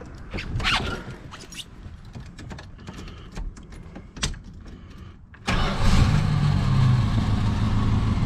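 A few clicks and knocks, then about five and a half seconds in the 1973 Dodge Dart's 318 small-block V8 fires. It settles into a steady, smooth idle with no misfire, now that a brake-booster vacuum leak has been found as the cause of the miss.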